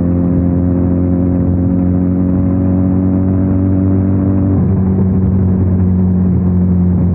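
Benelli 302R's 300 cc parallel-twin engine running at a steady pitch, with a small change in the note about four and a half seconds in.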